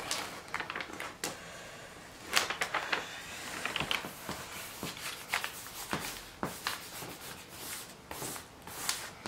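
Glossy protective cover film on a diamond painting canvas crinkling and crackling as a hand peels back a corner and smooths it down again, in irregular rustles and sharp crackles.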